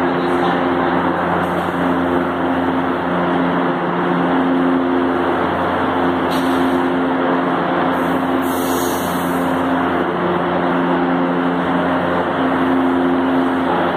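Metro train J37 standing at the platform with its doors open, its onboard equipment giving a steady loud hum with several low tones that drop out and return every few seconds. A short hiss of air comes about halfway through.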